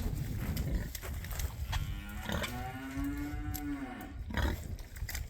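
A cow mooing once in the middle, one long call of about two seconds that rises and then falls in pitch, over scattered knocks and rustling.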